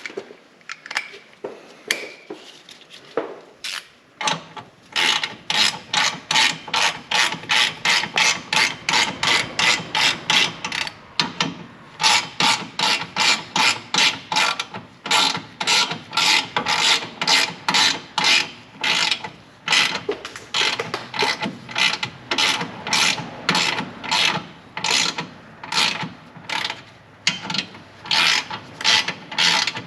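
Hand ratchet wrench being swung back and forth, its pawl rasping on each return stroke, a little over two strokes a second, with a short break partway through. A few scattered knocks come before the steady ratcheting starts.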